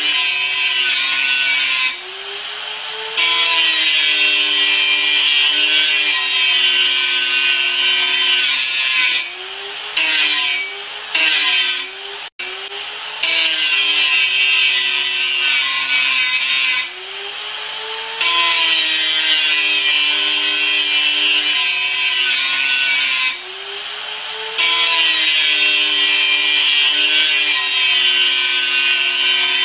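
Electric grinder running under load, a loud grinding hiss over a steady motor whine. Several times the hiss drops away for about a second and the motor pitch shifts before the grinding picks up again.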